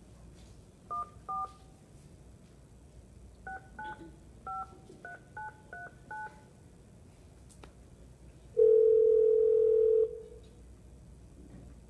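Conference speakerphone dialing: touch-tone keypad beeps, two and then a quick run of about seven more, followed by one loud steady tone of about a second and a half as the call starts ringing through the speaker.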